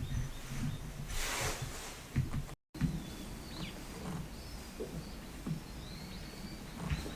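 Outdoor background noise with faint, high bird chirps and whistles, and a short rustle about a second in. The sound drops out completely for an instant about two and a half seconds in.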